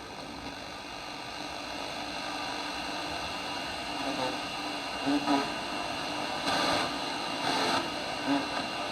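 Radio static from a vintage Sony portable radio-cassette player: a steady hiss with faint, broken fragments of a voice coming through now and then.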